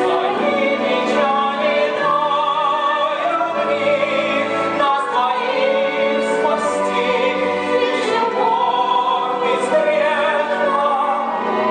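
Stage musical number: operatic-style singing with strong vibrato over orchestral accompaniment, continuing without a break.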